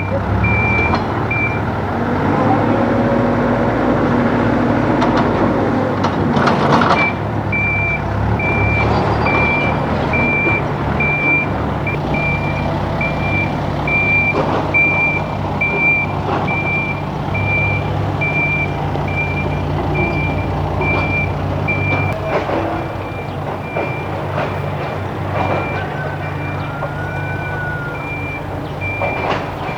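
Heavy machine's backup alarm beeping at a regular pace over a diesel engine running steadily; the beeping pauses for a few seconds near the start, and a few sharp clanks stand out.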